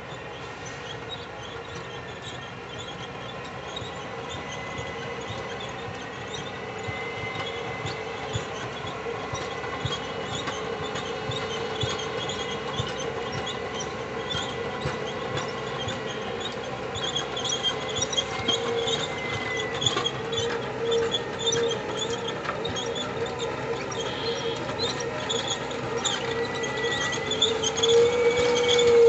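Cat 623K elevating paddle scraper loading, its diesel engine running steadily under load while the paddle elevator lifts soil into the bowl with a rapid metallic clatter. It grows louder as the machine comes closer, and the clatter is densest in the second half.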